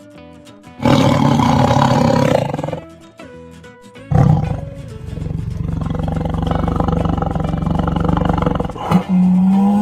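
Tiger roaring: a short roar about a second in, then a longer, drawn-out roar from about four seconds that runs almost to the end.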